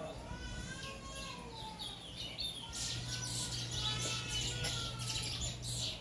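Caged bullfinch singing: a run of whistled notes that slide up and down in pitch, turning into a busier stretch of quick chirps and trills from about three seconds in.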